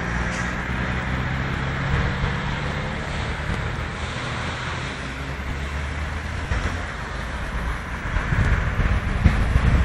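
Road traffic passing: a steady low engine hum with tyre noise from a convoy of buses and police cars. There are a few low bumps near the end, and no sirens.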